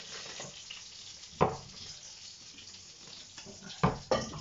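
Knocks of a chorizo and a kitchen knife on a wooden cutting board: one sharp knock about a second and a half in, then two quick ones near the end as the knife starts cutting into the sausage, over a faint steady hiss.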